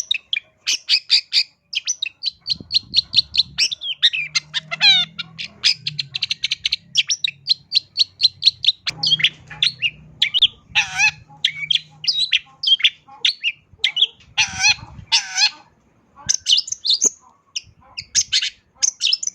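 Long-tailed shrike (cendet) singing continuously: a fast, varied string of sharp high chirps and trills, full of mimicked phrases of other birds.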